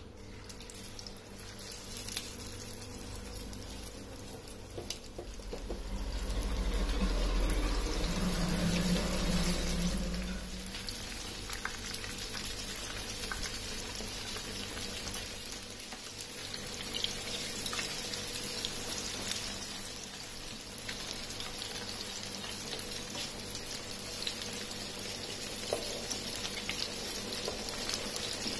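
Gram-flour-battered fish pieces sizzling as they fry in hot oil in a frying pan, a steady crackling hiss that grows louder for several seconds about a fifth of the way in as more pieces go into the oil.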